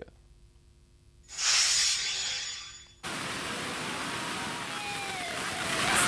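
Steady rush of a waterfall's falling water, a full even hiss that cuts in abruptly about halfway through. Before it come a moment of near silence and a short, high hiss that fades out.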